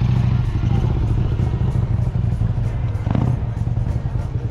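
Vintage motorcycle engine running steadily, with a single knock about three seconds in.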